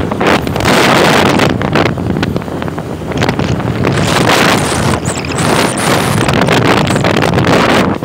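Loud wind buffeting the microphone of a phone carried on a moving motorcycle, with the small motorcycle's engine running underneath.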